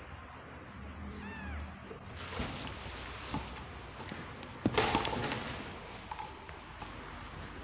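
A cat gives a short, high, thin mew about a second in. Just before the middle comes the loudest sound, a sharp knock with rustling after it.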